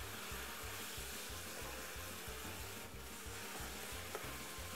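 Pork strips and sweet peppers sizzling quietly in a frying pan as they are stirred with a wooden spoon, with a light click about four seconds in.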